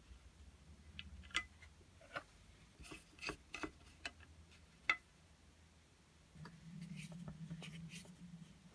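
Screwdriver turning the bolt nuts that hold a hand plane's wooden rear handle to its cast-iron body: faint, scattered metal clicks and scrapes, sharpest about one and a half and five seconds in. A low steady hum comes in about two-thirds of the way through.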